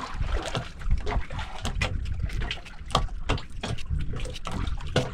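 Water boiling in a cooking pot, bubbling with many irregular small clicks and pops over a steady low rumble.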